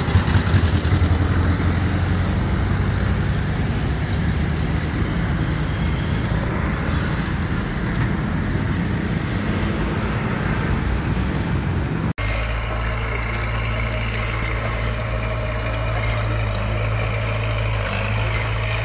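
Road traffic passing as a steady rumble. About twelve seconds in, a sudden cut gives way to a heavy engine idling with a steady low hum.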